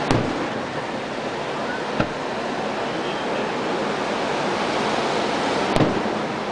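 Aerial firework shells bursting with sharp bangs, three in all: one right at the start, a fainter one about two seconds in, and a louder one near the end, over a steady rushing background noise.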